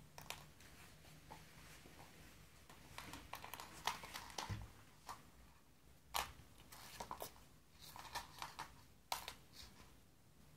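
A kitten scrabbling and pouncing on a laminate floor as it plays with a small toy: faint, irregular scrapes and taps of paws and claws, coming in quick clusters.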